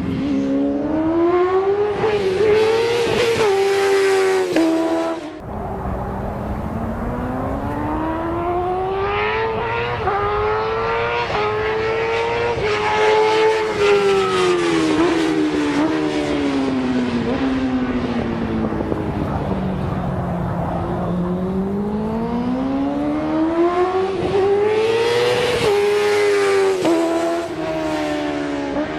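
Motorcycle engine ridden hard on a race track, its pitch climbing under acceleration, dropping sharply at a shift or throttle cut about five seconds in, then rising and falling slowly twice more as the bike speeds up and slows.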